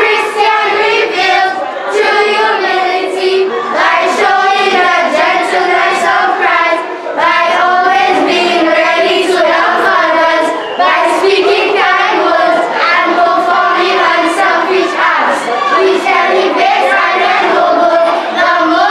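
A group of children singing a song together as a choir, the notes held and moving in a continuous melody.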